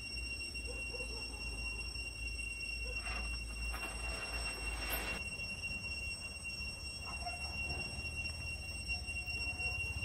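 Cicadas singing: a steady, high-pitched whine, with a louder hissing buzz swelling from about three to five seconds in.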